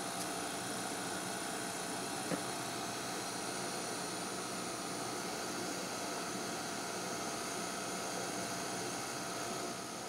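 Sony CV-2000D reel-to-reel videocorder running in playback: a steady whir and hiss with a thin high whine. A single small click comes about two seconds in.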